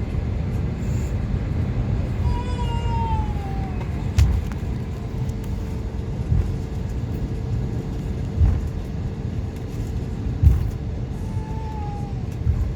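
Airbus A320neo cabin noise while the plane moves on the ground: a steady low rumble with a faint steady hum, and a few short thumps about four, eight and a half and ten and a half seconds in.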